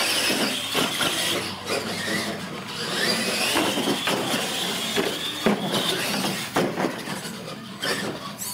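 Electric radio-controlled monster trucks racing: motors whining, rising and falling in pitch with the throttle, over the noise of their big tyres on a hard floor, with several sharp knocks as they hit and land off the jumps.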